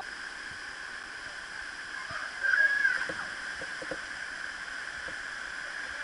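Steady rush of a small waterfall cascading over rock into a stream pool. A brief louder sound rises over it about two and a half seconds in.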